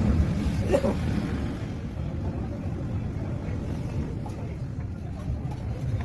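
A steady low rumble, with a faint tap about a second in.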